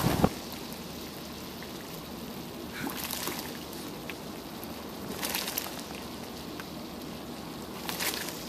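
Geothermal mud pool bubbling, a steady soft hiss with a few louder plops about every two to three seconds. A brief rush of wind noise cuts off just after the start.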